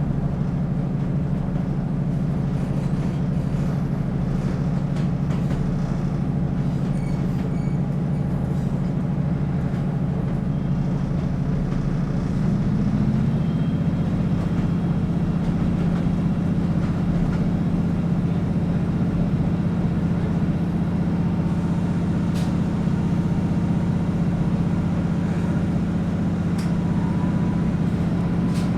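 Class 156 Sprinter diesel multiple unit running along the line, heard from inside the carriage: a steady low drone from its underfloor diesel engine over running noise. The drone's tone shifts about halfway through.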